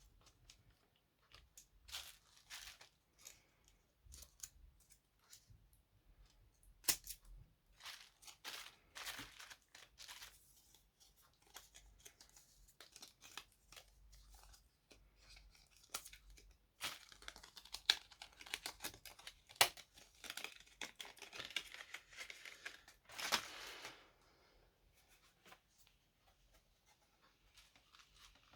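Close-up handling noises: scattered sharp clicks and taps with bouts of crinkling, tearing rustles, busiest in the second half.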